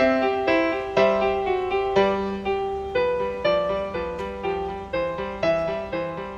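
Background piano music: single notes and chords struck in a steady rhythm of about two a second, each note decaying.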